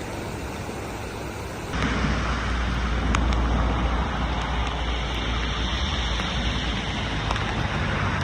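Steady rushing noise of rain and running floodwater. About two seconds in it jumps to a louder stretch with a deep rumble underneath.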